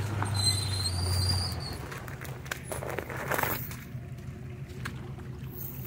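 Car engine revving hard under load, with a high whine over it, as the vehicle tries to rock its way out of deep mud. The revs drop after about a second and a half and the engine runs on more quietly.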